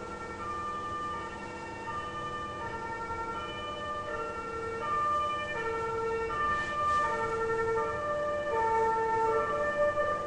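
Ambulance siren on a film soundtrack, held tones alternating between higher and lower pitches, a little louder from about halfway through.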